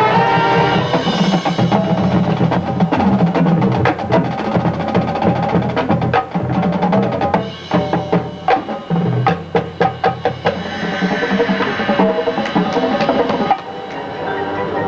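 Drum and bugle corps playing its field show: brass over a drumline. Around the middle the drums break into a run of sharp, rapid strikes, and near the end the sound drops to a quieter passage.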